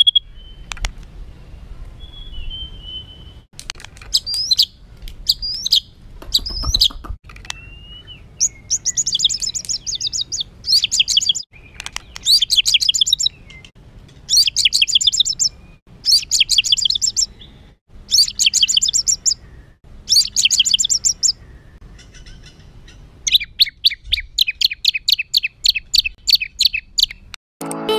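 White-rumped shama (murai batu) singing a rough, aggressive song: a few short whistles, then rapid chattering phrases repeated about every two seconds, and a long fast rattle near the end. Song of this kind is played to provoke other birds into singing.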